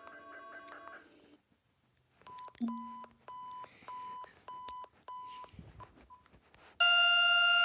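Emergency alert alarm tones: a chord of steady electronic tones that stops, a short pause, then a run of about six short beeps at one pitch with a brief low buzz among them. Near the end a loud, buzzy steady alarm tone comes in and cuts off suddenly.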